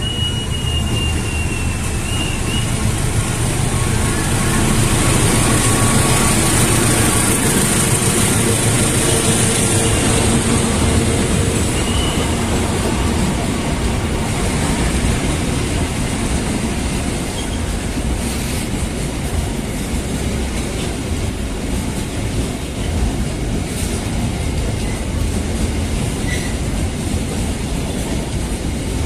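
Freight train of empty flat container wagons running through the station close by, its wheels rumbling and clattering steadily over the rails, loudest a few seconds in. A brief high squeal sounds near the start as the locomotive passes.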